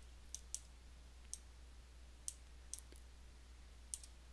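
Computer mouse clicking: about eight short, sharp clicks at irregular intervals, some in quick pairs, over a faint steady low hum.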